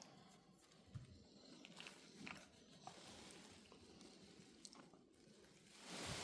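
Central Asian Shepherd dog snoring faintly in its sleep, with a few soft mouth clicks and a louder breath near the end.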